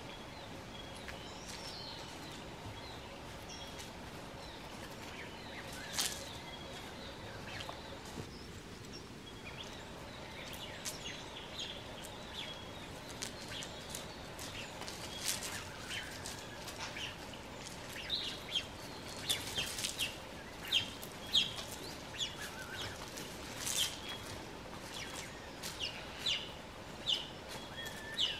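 Southern cassowary chicks peeping: short high peeps, scattered at first, then coming thick and fast in the last ten seconds, with a few sharp clicks among them.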